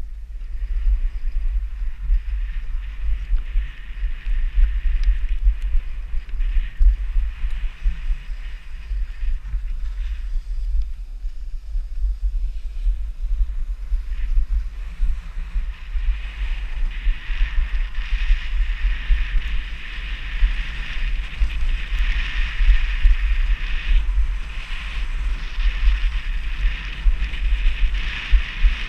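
Wind rumbling on a worn GoPro's microphone while skiing downhill, with the hiss and scrape of skis on packed snow, louder in the second half.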